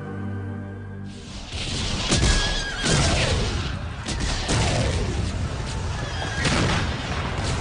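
Held music notes give way, about a second in, to a battle sound effect: horses neighing in falling cries amid several gunshots and booms.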